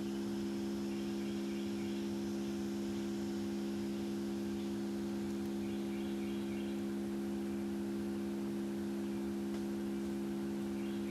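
Tone generator playing a steady 68 Hz tone, heard as a continuous low hum that holds without change.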